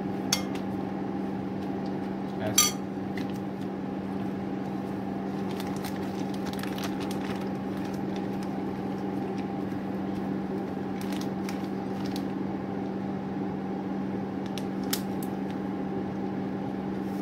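A metal spoon clinking a few times against a glass bowl and glass while thick purée is scooped, the sharpest clink about two and a half seconds in, over a steady low hum.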